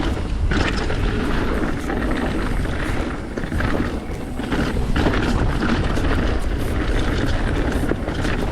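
Mountain bike riding down a dirt trail: wind rushing over the microphone, with tyre and trail noise and rattles from the bike. The rumble and hiss shift in level but never stop.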